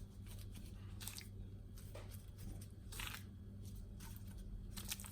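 Hands arranging pieces of marinated raw chicken in a tagine base: a few short, soft squelches and rustles of food handling, over a steady low electrical hum.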